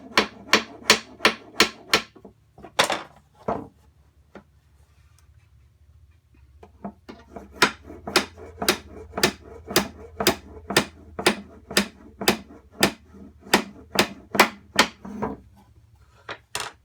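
Hammer driving nails into the finger-jointed corner of a wooden Langstroth hive body, with sharp blows about three a second. The hammering comes in two runs: one for the first few seconds, and a longer one after a short pause of a couple of seconds, with one last blow near the end.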